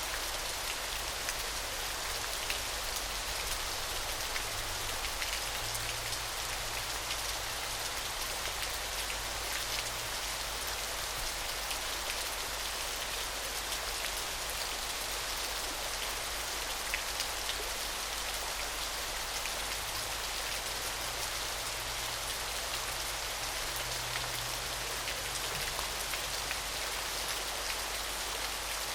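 Small waterfall splashing steadily: a continuous hiss of falling water with a dense patter of fine droplets.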